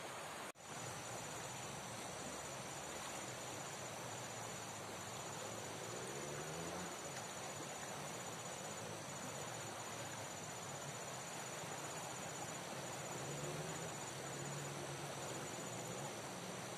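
High, pulsing insect trill, like crickets, running steadily over an even rushing noise of river water. There is a brief dropout about half a second in.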